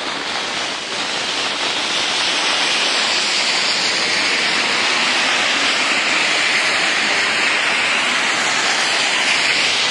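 Heavy rain pouring onto flooded pavement: a loud, steady hiss that grows a little louder about a second in.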